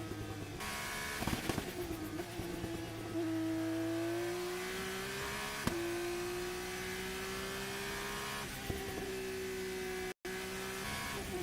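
Turbocharged single-seater race car engine at high revs, its pitch climbing slowly with a small step about six seconds in. Rough, fluttering stretches come near the start and again near the end, where the turbo flutters off throttle. The sound cuts out for a moment near the end.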